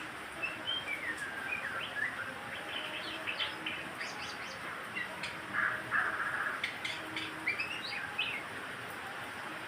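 White-rumped shama (murai batu) singing a varied phrase of clear whistled glides and quick high notes, with a couple of short harsh notes about halfway through, over a steady background hiss. The song falls silent near the end.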